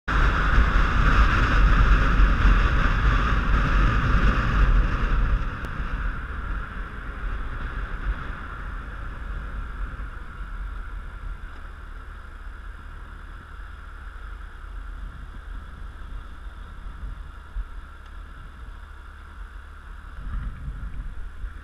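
Wind rushing over a helmet-mounted microphone, with the motorcycle's engine and road noise underneath; loud for about the first five seconds, then dropping to a quieter steady rush as the bike slows and comes to a stop in traffic.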